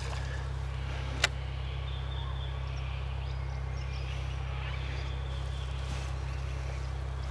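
A steady low hum throughout, with one sharp click a little over a second in.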